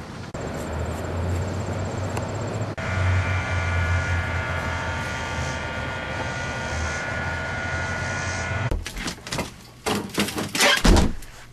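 A steady low rumble with a hum, then a quick run of knocks and clatters as frozen items are rummaged in an open chest freezer, loudest near the end.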